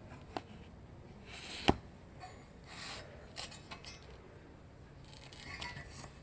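Small metal engine parts being handled on a table: scattered clicks, clinks and short scrapes, with one sharp knock as a part is set down about a second and a half in.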